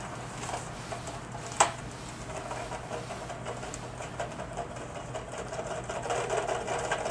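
Toy foam-dart blaster firing: a steady mechanical rattle, with one sharp click about a second and a half in, played back through computer speakers.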